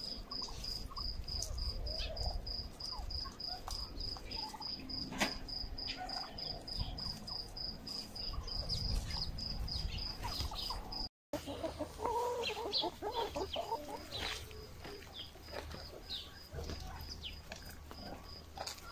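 Domestic turkeys gobbling and calling over a steady, high, pulsing cricket chirp. After a short break about eleven seconds in, hens cluck and call.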